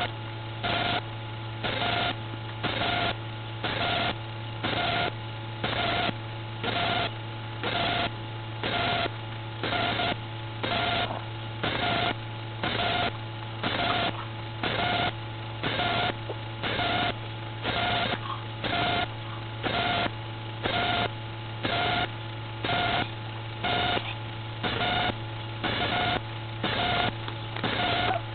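Steady electrical hum with a buzzing electronic pulse repeating about once a second, even and unchanging, like interference on the recording.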